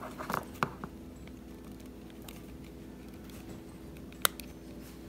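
Small plastic scrapes and clicks as a plastic bread tie is pried into the seam of a Samsung TV remote's snap-together plastic case, with one sharp click about four seconds in.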